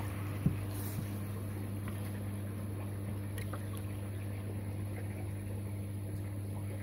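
Steady low machine hum, like a motor or pump running, with a sharp knock about half a second in and a softer one a moment later.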